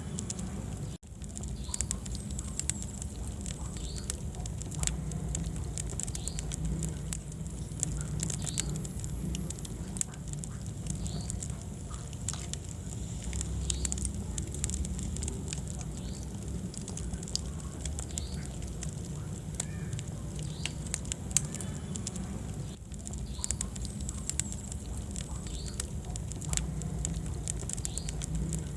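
Wood fire burning in a fireplace, crackling and popping in many irregular sharp snaps over a steady low rumble of the flames. The sound cuts out briefly about a second in.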